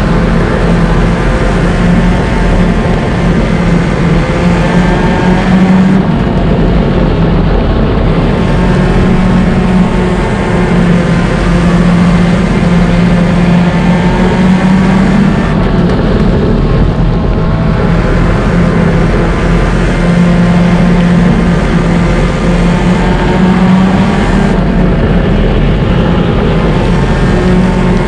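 Stinger-class race car engine heard from inside the car, running hard around a dirt oval. It eases off three times, about nine seconds apart, then pulls again.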